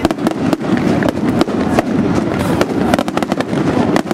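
Fireworks display: a dense, unbroken run of sharp bangs and crackling shell bursts, many overlapping each other, with a denser cluster near the end.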